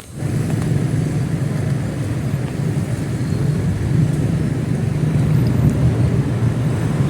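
Road traffic: vehicle engines running and passing in a steady, continuous rumble.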